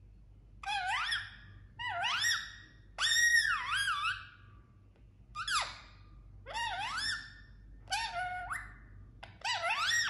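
Indian ringneck parakeet calling: seven short, clear whistle-like calls, each swooping up and down in pitch, about a second apart, with a longer pause in the middle.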